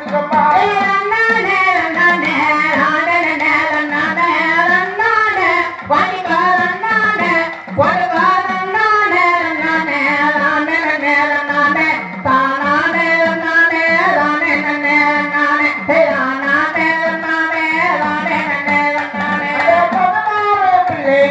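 Women singing a Tamil Mulaippari folk song together, a continuous melody over a steady beat.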